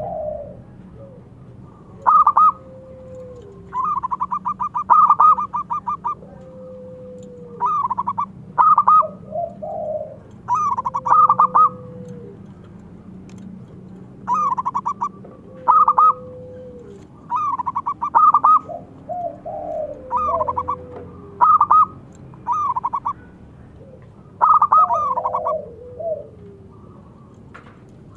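Zebra dove (perkutut) cooing: repeated short phrases of quick stuttering coo notes, one every second or two, several of them trailing into a longer, lower note that slides down.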